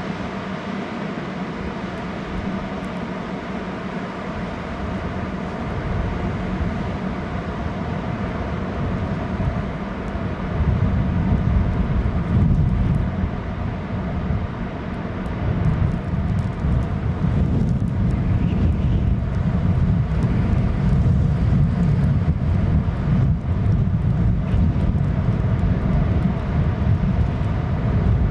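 Strong wind gusting across an outdoor camera microphone, with a buffeting low rumble over a steady rushing background. The gusts grow heavier about ten seconds in.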